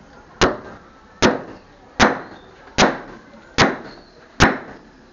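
Steady hammering on a building site: six evenly spaced hard blows, a little more than one a second, each with a short ringing tail.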